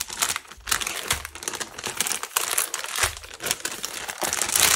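Plastic zip bags of diamond-painting drills crinkling as they are handled and pulled out, a run of irregular crackles.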